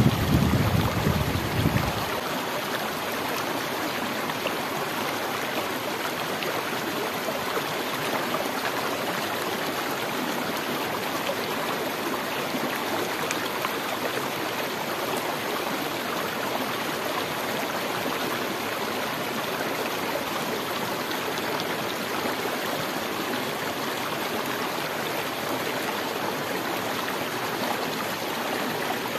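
Steady rush of a stream flowing. In the first couple of seconds, wind buffets the microphone with a low rumble.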